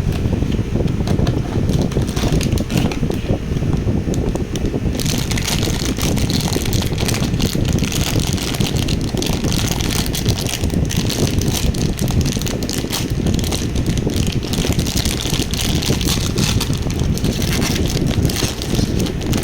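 Plastic packaging crinkling and crackling as a kids' meal toy is unwrapped, with the crackle growing denser about five seconds in. Under it runs a steady low rumble of wind or handling noise on the microphone.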